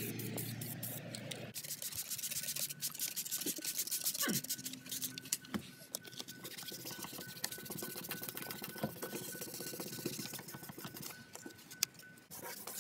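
Fine-grit wet sandpaper (1500 and 2000 grit) rubbing back and forth over the freshly painted steel door sill of a car, a fast scratchy rubbing.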